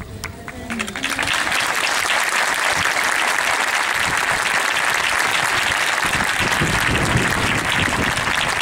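Crowd applauding, steady massed clapping that starts about a second in.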